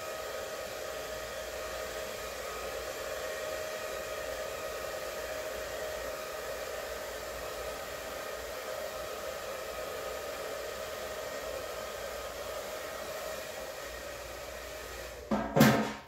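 Handheld hair dryer running steadily, a rushing blow with a level motor whine over it. It cuts off about fifteen seconds in, with a loud knock.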